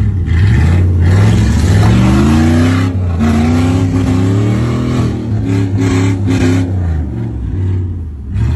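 Jeep Grand Cherokee engine revving hard under load during a tow-strap recovery of a stuck Grand Cherokee. The revs climb over the first few seconds and hold, then come in several quick blips before easing off near the end.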